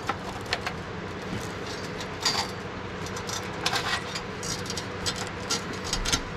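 Irregular small clicks and rattles of cables and plastic connectors being handled and pushed into place, over a steady background hum.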